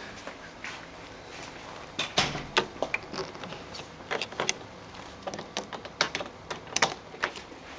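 Room keys on plastic tags clinking and clattering against metal hooks on a key board as one key is taken down: a quick series of sharp clicks starting about two seconds in.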